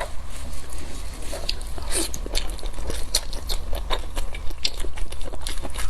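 Close-miked biting and chewing of spiced sheep's ear: irregular wet clicks and crunches of gristle, several a second, over a low steady hum.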